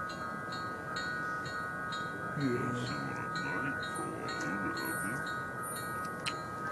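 Approaching locomotive's bell ringing steadily, about two strokes a second, with a sustained ringing tone; its sound is likened to an electronic locomotive bell (E-bell).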